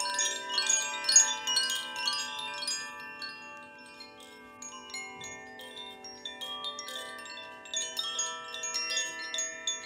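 Chimes struck in quick, irregular succession, many bright ringing tones overlapping over lower sustained tones. Busiest for the first three seconds, then thinning out and picking up again near the end.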